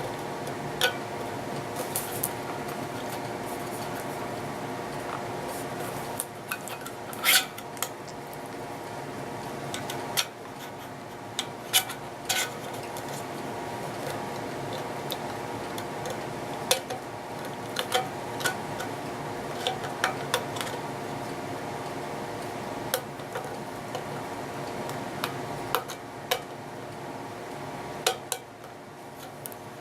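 Scattered light metal clicks and clinks as a cut piece of wire coat hanger is handled against an empty tin can, over a steady background hum.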